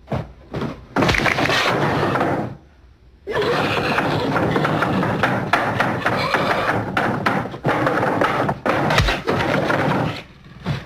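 Horror-film soundtrack of a violent scene: dense crashing and cracking with sharp blows, dropping almost to quiet for under a second about two and a half seconds in.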